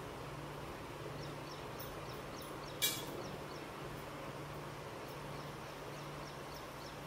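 Quiet kitchen ambience: a steady low hum with faint, high chirps repeating about three times a second. A single sharp clink, likely a utensil against a dish, comes about three seconds in.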